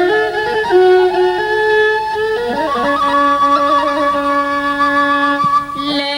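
Instrumental passage of an Amharic Passion-week hymn: a slow melody of long held notes that step between pitches.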